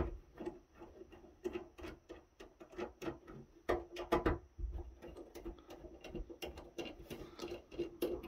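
Small screws being backed out of a network switch's sheet-metal lid with a precision screwdriver: faint, irregular small clicks, ticks and scrapes of the bit and fingers on the metal cover.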